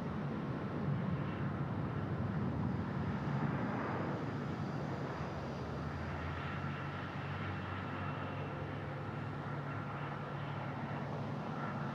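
Jet engine noise from a Southwest Airlines Boeing 737 MAX landing: its CFM LEAP-1B turbofans give a steady rumble with a faint steady whine above it.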